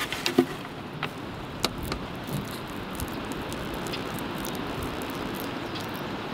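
Embossed pattern paint roller rolling through thick drywall mud on a wooden drawer front: a steady wet squishing crackle, with a few sharp clicks in the first couple of seconds.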